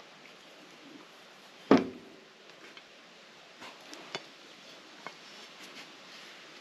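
A metal castor wheel knocks once against a hard surface with a sharp clunk and a brief ring, followed by a few light clicks and knocks of handling.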